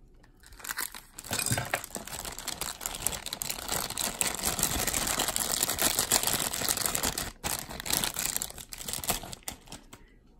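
Thin clear plastic packaging bag crinkling as it is cut open with scissors and pulled apart by hand. The crinkling starts about a second in and runs almost without a break, with a short pause about seven seconds in.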